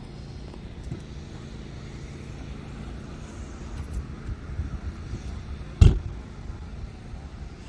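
A police SUV's driver door shutting with one loud clunk near the end, over a steady low vehicle hum and outdoor background.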